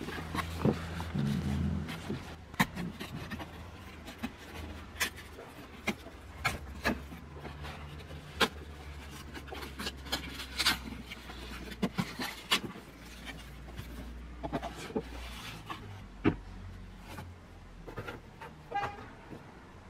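Cardboard packaging and a hard plastic tool case being handled: scattered clicks, taps and rubbing as the box is opened and the case is slid out. A low steady rumble runs underneath and thins out near the end.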